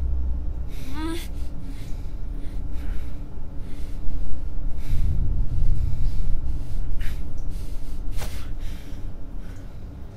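A gagged woman gasping and breathing sharply through her nose, with a short muffled cry that rises in pitch about a second in. A low rumbling drone runs underneath.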